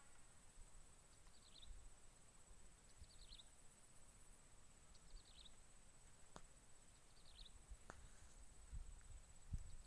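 Near silence with a faint, short high chirp repeating about every two seconds, a small animal calling. Under it runs a steady faint high whine, with two faint clicks late on.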